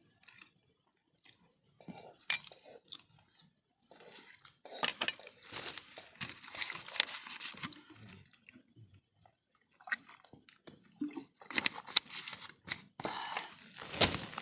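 A person eating instant noodles close to the microphone: irregular chewing and mouth sounds, with a few sharp clicks.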